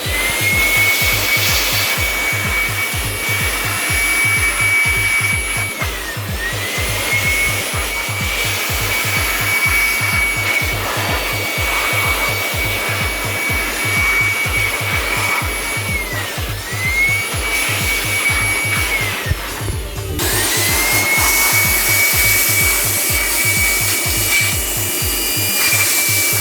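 A small high-speed electric motor running with a steady high whine that sags and winds back up a few times, as if it is briefly eased off and reapplied, over an even low pulsing.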